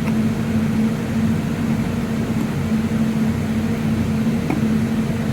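Steady mechanical hum with a low droning tone and a fainter one above it, with a faint click about four and a half seconds in.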